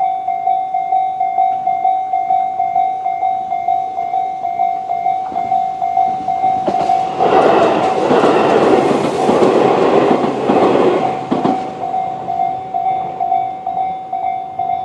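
Japanese level-crossing warning bell (Tobu 'sound C' type) ringing in a steady, rapidly repeating ding. About six seconds in, a Tobu 800 series electric train rushes past over the crossing with clattering wheels for about five seconds, drowning the bell, which carries on alone after it has gone.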